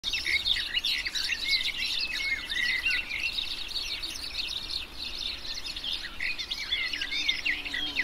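Several songbirds singing and chirping at once, a dense chorus of quick, high, overlapping notes and trills.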